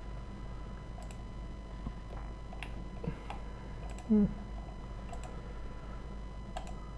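Scattered single clicks of a computer keyboard and mouse, a few seconds apart, over a faint steady electrical hum. A brief vocal murmur about four seconds in is the loudest sound.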